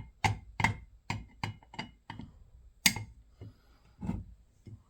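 An irregular run of sharp clicks and light knocks, about three a second, from a screwdriver working the screws out of a fire alarm pull station.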